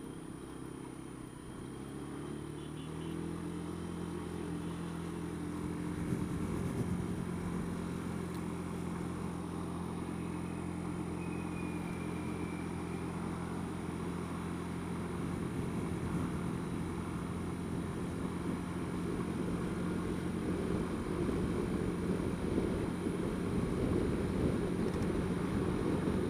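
Honda Dio scooter engine picking up speed, its pitch rising a couple of seconds in, then running steadily while cruising, with road and wind noise growing a little louder toward the end.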